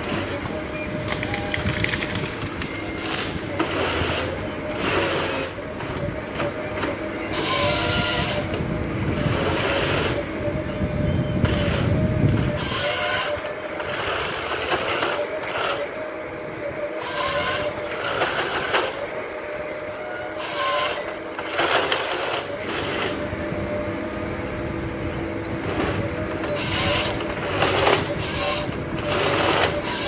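Tracked forestry harvester at work: a steady, wavering whine of its engine and hydraulics runs throughout, broken by repeated loud surges of noise, about one every few seconds, as the harvester head saws and feeds the stem.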